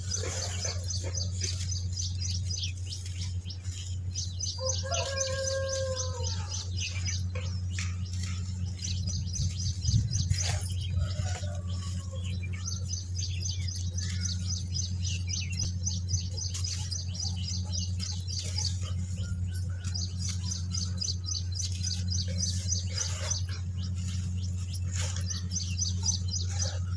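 Dry dirt clods crunching and crumbling in bare hands, with powder pouring back onto the pile and an occasional knock of a lump. Small birds chirp in long quick trains through most of it, over a steady low hum.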